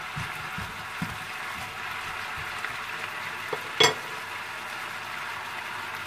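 Sliced carrots and cauliflower sizzling steadily in a frying pan, with soft knocks of a wooden utensil stirring them in the first second or so. A single sharp clack a little under four seconds in.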